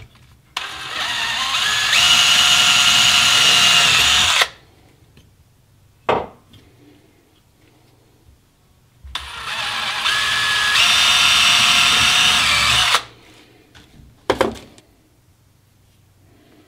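Handheld power drill boring pin holes through a wooden knife handle, run twice for about four seconds each, each time speeding up with a rising whine and then holding steady. A short sharp knock comes between the two runs and another after the second.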